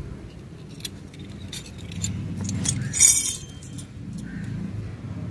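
Stainless steel spoon and tumbler clinking as a small steel cup is handled: a few light clicks and one louder metallic clink that rings briefly about three seconds in, over a steady low background rumble.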